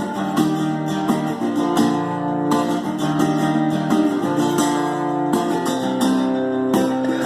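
Instrumental break in a song: acoustic guitar strummed and picked, chords changing in a steady rhythm, with no singing.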